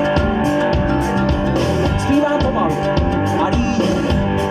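Live amplified folk-rock band playing, with electric and bass guitars, mandolin, congas and a drum kit keeping a steady beat.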